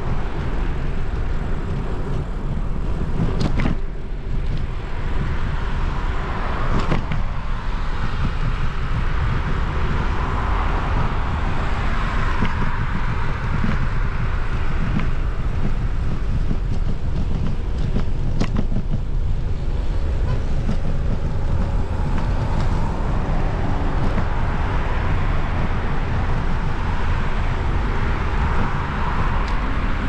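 A bicycle riding a trail: wind buffeting the microphone and tyre rumble on the path, with a few sharp knocks from bumps.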